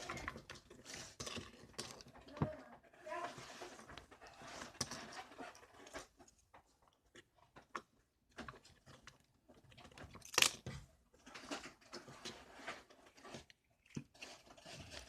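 Slime being squished and kneaded by hand: irregular wet crackles and pops, with one louder squelch about ten seconds in.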